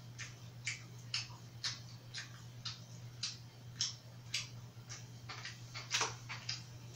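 Steady, regular ticking, about two ticks a second, over a constant low electrical hum. A louder click comes about six seconds in, as a drink can on the table is taken in hand.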